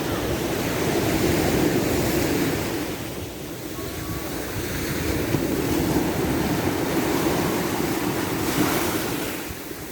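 Ocean surf: waves breaking and washing in, swelling twice and easing off between.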